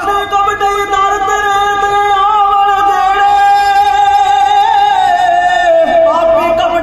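Male kavishri singing: Punjabi folk-religious verse sung in long, held notes, the melody stepping down in pitch about five seconds in.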